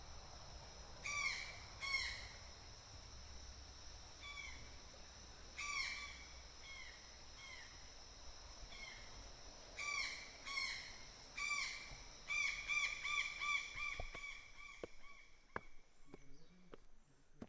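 Birds calling outdoors: short, down-slurred calls at irregular intervals, then a quick run of calls, about five a second, near the end. A faint steady high hum runs underneath and fades out near the end.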